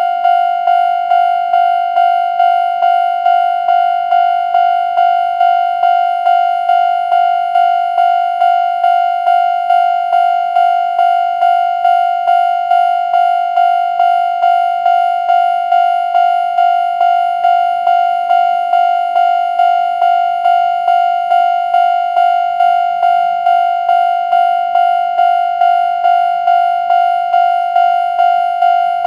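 Japanese railway level-crossing warning bell, the older standard electronic alarm tone, ringing a clanging 'kan-kan' strike over and over at a fast, even tempo. Each strike rings and fades a little before the next.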